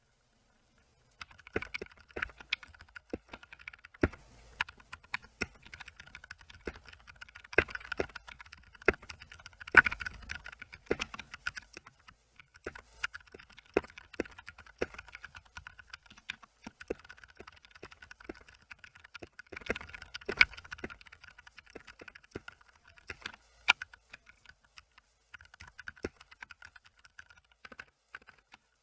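Typing on an Akko 3061S mechanical keyboard with Gateron Orange tactile switches and PBT keycaps: a fast, irregular run of key clacks that starts about a second in and goes on with short pauses.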